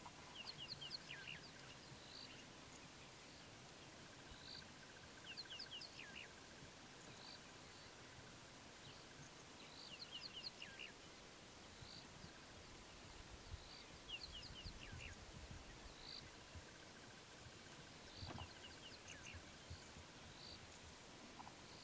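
Quiet outdoor ambience near silence: short phrases of high, falling chirps repeat every two seconds or so over a faint steady insect-like buzz.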